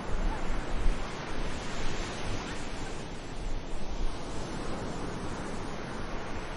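Sea surf washing onto a beach, a steady rush with a swell in the first couple of seconds. A gusty low rumble of wind on the microphone runs under it.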